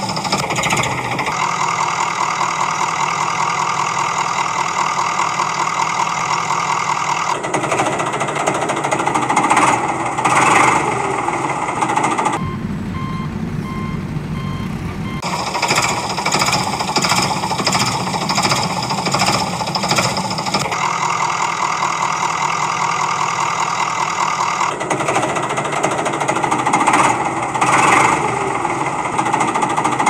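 Heavy-vehicle engine sound effect running with a fast, even beat, broken about twelve seconds in by a few seconds of reversing beeps; the sequence repeats, with the beeps starting again near the end.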